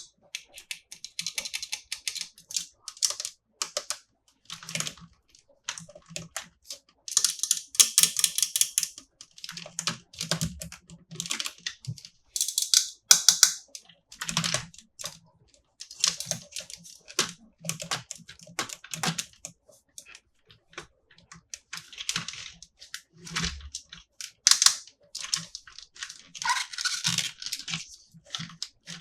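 Plastic toys and packaging handled up close: an irregular run of small clicks, taps and rustles, with a few duller knocks.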